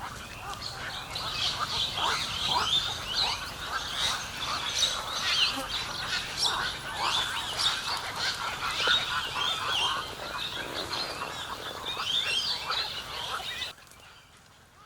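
A flock of birds calling: many short, overlapping calls in a dense, continuous chorus that cuts off abruptly near the end.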